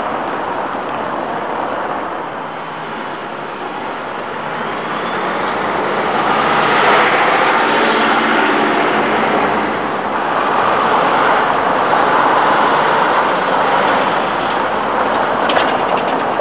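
PCC trams running across the square on street track, the rolling noise of wheels on rail mixed with passing road traffic. It swells twice, about halfway through and again later, and a few sharp clicks come near the end.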